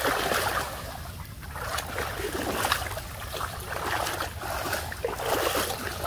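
People wading through knee-deep water, a sloshing splash with each stride, about one a second.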